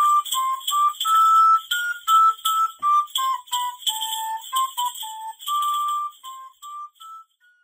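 Music: a single high-pitched pipe playing a quick tune of short separate notes, growing quieter about six seconds in and ending just before the close.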